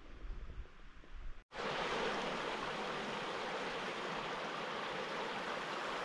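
Steady rushing of a creek, starting abruptly about a second and a half in; before that only a faint low rumble.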